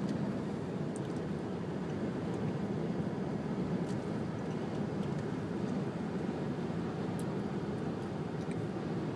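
Steady road and engine noise inside a moving car's cabin, an even rumble with no change in pace.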